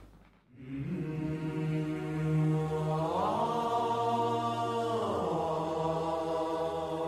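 Sombre background music fading in after a brief hush: a sustained wordless chant-like drone whose pitch slides up about three seconds in and back down about five seconds in.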